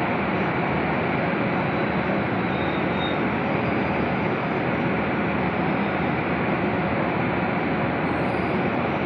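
Passenger train coaches rolling past a platform: a loud, steady noise of wheels running on the rails, without let-up.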